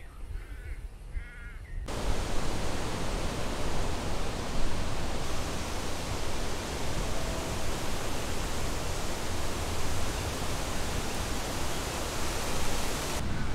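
A few faint bird chirps, then about two seconds in a steady, even rushing noise starts abruptly and fills the rest of the stretch.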